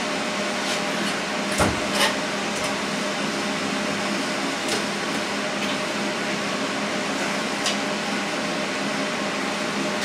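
A steady mechanical hum from a fan-like machine in a garage, with a few sharp knocks of tools being handled: two close together about a second and a half in, and two fainter ones later.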